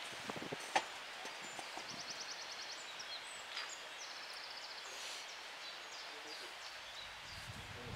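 Quiet open-air ambience with faint distant birdsong: scattered high chirps and two short, rapid trills. A few sharp clicks come in the first second.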